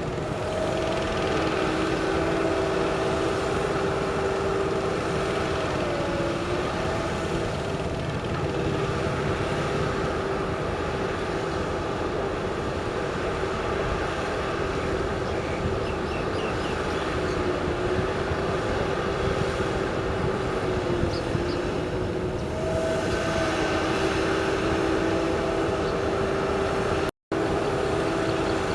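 Heavy diesel machinery running steadily with a sustained whine, its pitch sagging briefly twice as the engine takes load. The sound cuts out for a moment near the end.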